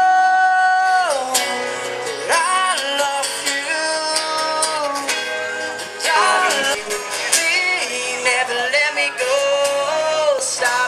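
Music with a singer, opening on a long held note and moving on through shorter sung phrases.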